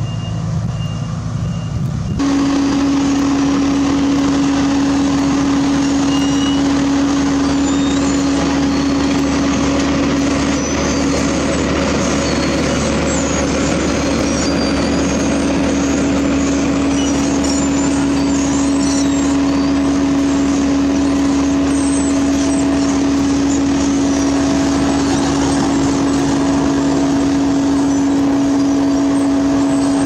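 Heavy road-paving machinery running steadily close by, its engine noise dominated by one strong steady hum. A reversing alarm beeps at the start, then about two seconds in the sound changes abruptly and gets louder.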